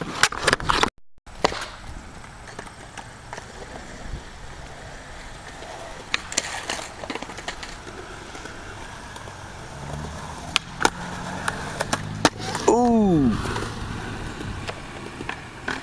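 Skateboard wheels rolling on concrete, with several sharp clacks of the board's deck hitting the ground as tricks are popped and landed. The rolling gets louder about two-thirds of the way through.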